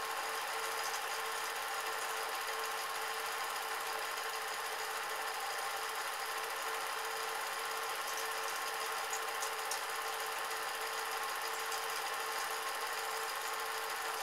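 Film projector running: a steady mechanical whirr with a constant hum.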